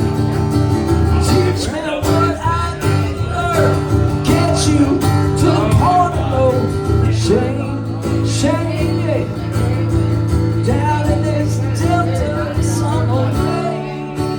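Country music instrumental break: guitars and bass under a lead melody that slides up and down in pitch.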